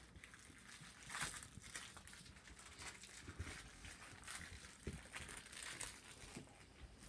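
Faint rustling and soft scuffling, with a few low thumps about three and five seconds in, from dogs and a person moving about on carpet.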